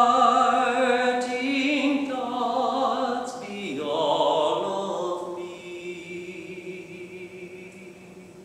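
A man singing solo without accompaniment, holding long notes with vibrato; the last sung note ends about five seconds in and the sound then fades away.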